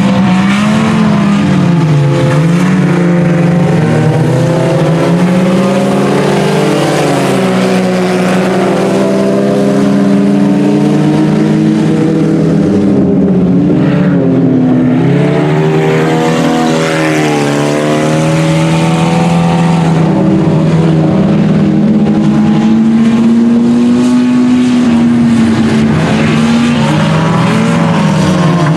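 Several IMCA Sport Compact race cars' four-cylinder engines running hard in a pack. They rev up and ease off in overlapping notes, rising and falling in pitch again and again as the cars lap.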